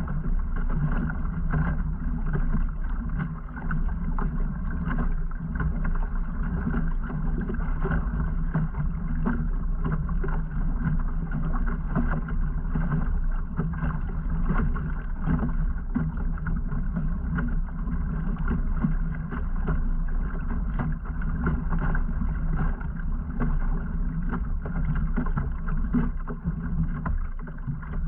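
Kayak under way at a slow trolling pace: a steady wash of water along the hull with a constant low hum underneath.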